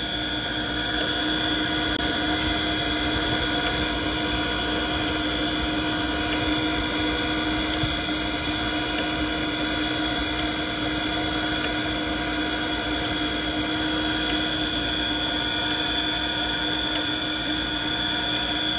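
Hydraulic surface grinder running with flood coolant on, its wheel spinning over the workpiece: a steady machine hum with several steady tones.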